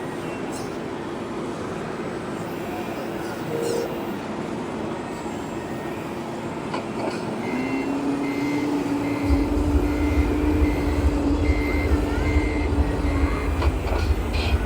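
Radio-controlled Tatra 815 6x6 model truck backing up: its reversing beeper sounds about twice a second for several seconds over a steady motor whine that starts about halfway. A low rumble joins about two-thirds of the way in.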